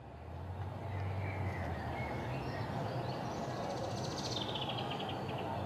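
Outdoor park ambience fading in: birds singing, with one fast trill falling in pitch about four seconds in, over a steady low rumble.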